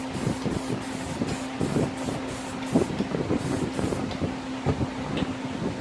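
Aerosol can of gray spray paint hissing in quick, evenly spaced puffs, about four a second, giving a finishing coat to a liquid-vinyl seat-cover repair; the spraying stops about four seconds in. A steady low hum runs underneath.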